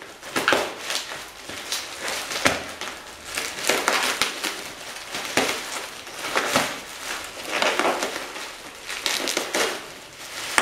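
Bubble wrap being pulled apart and crumpled by hand, crinkling in a series of irregular rustles.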